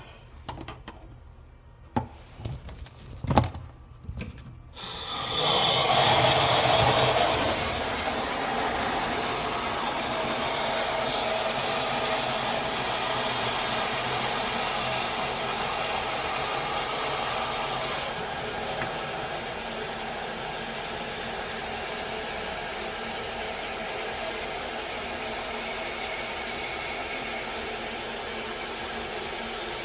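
A few knocks and clicks, then from about five seconds in water runs steadily and strongly, slightly louder at first.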